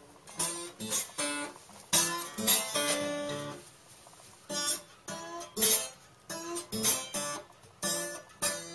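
Acoustic guitar music, with picked notes and strummed chords.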